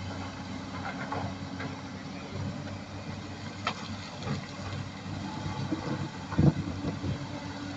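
Diesel engines of crawler excavators running steadily as they dig stony soil, with a few sharp knocks of a bucket on rock; the loudest comes about six and a half seconds in.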